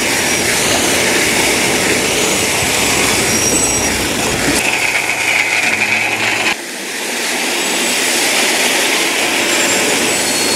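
Crushed granite gravel pouring out of a dump truck's open tailgate onto a dirt road as the truck creeps forward: a dense, steady rattling hiss of stones over the truck's engine. The low engine rumble drops away abruptly about two-thirds of the way through.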